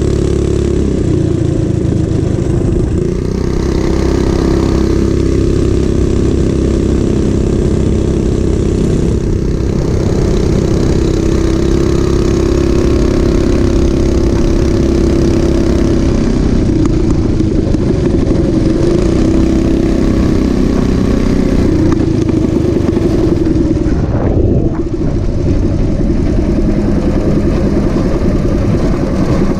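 Coleman CT200U-EX mini bike's single-cylinder engine, fitted with a straight pipe, running under way. Its pitch holds fairly steady with small rises and falls, and drops briefly a little past two-thirds of the way through as the throttle eases off.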